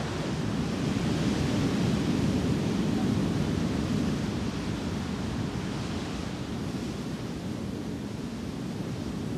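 Ocean waves washing ashore with wind, a steady rushing sound that swells over the first few seconds and then slowly eases.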